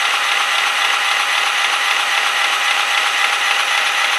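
An electric drill runs steadily, turning the crankshaft of a 3.5 hp Briggs & Stratton flathead mower engine with its cylinder head off. The piston and valves are spun at about a low idle speed.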